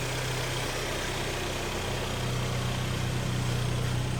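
Kia/Hyundai inline-four petrol engine idling steadily on its first run after a rebuild (cylinders bored, oversize pistons), running well. It is heard from below with the car raised on a lift, and gets slightly louder about two seconds in.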